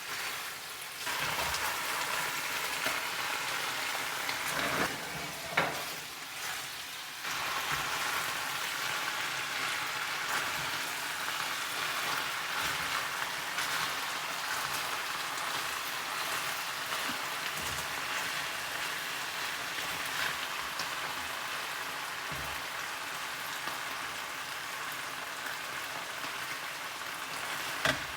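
Steak and fajita vegetables frying in a pan in the meat's own fat, a steady sizzle with no oil added. The sizzle dips briefly twice, and a couple of knocks of utensil on pan come around five seconds in.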